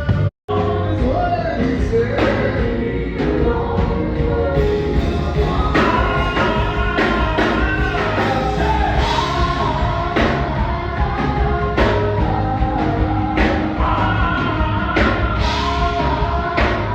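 Live gospel band playing with singing over it: drum kit hits, bass and keyboards under wavering vocal lines. The sound cuts out completely for a moment about half a second in.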